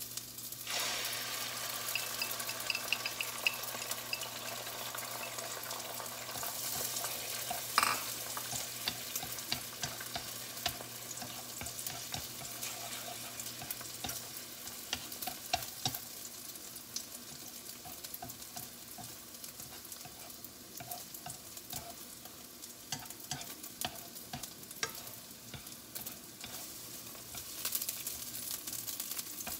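Food sizzling as it fries in a nonstick frying pan. The sizzle rises sharply about a second in as the contents of a bowl go into the hot pan, and chopsticks tap and scrape against the pan while the food is stirred.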